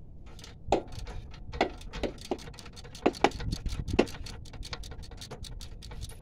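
Ratchet clicking as a 7 mm Allen-key socket is worked on a rear brake caliper guide pin, with several louder metal knocks in the first four seconds and quicker, lighter ticking after that.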